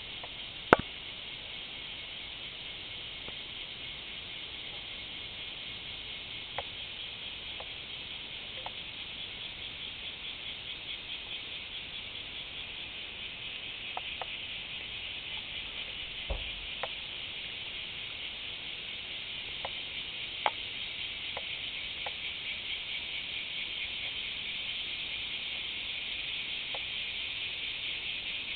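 Cicadas singing: a continuous shrill, finely pulsing buzz that slowly grows louder. A sharp click about a second in and a few faint ticks scattered through it.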